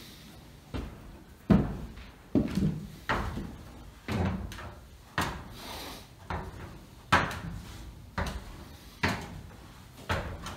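Heavy footsteps on a wooden floor and then on ladder rungs, a knock about once a second, each with a dull low thud.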